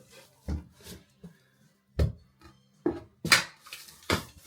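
A handful of irregular knocks and clatters from hand-tool work on a wooden window frame and sill being loosened, the loudest about three seconds in.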